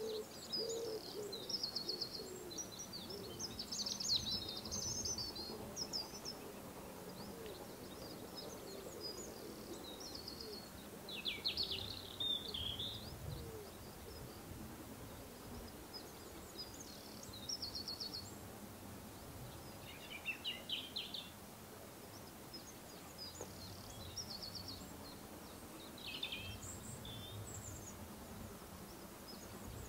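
Countryside birdsong: scattered chirps and short rapid trills from several small birds over a faint steady outdoor background.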